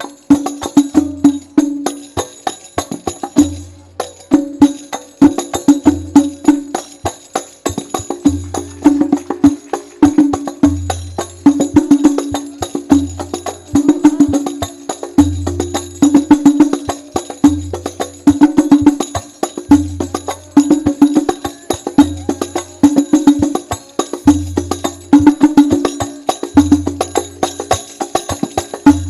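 Al-Banjari frame-drum ensemble (terbang) playing an instrumental interlude: many hand-struck drums in a fast interlocking rhythm, with a deep bass drum stroke about every two seconds.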